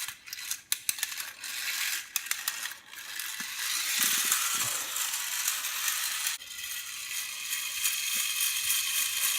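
Tin wind-up biplane toy: a few separate clicks of the key and clockwork, then the spring-driven clockwork mechanism running with a steady high rattling whirr as it unwinds, turning the wheels and propeller.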